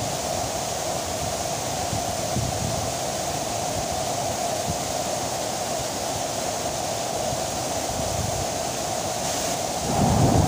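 Steady rush of a waterfall, swollen after rain, falling water making an even roar of noise. Near the end it grows louder with more low rumble.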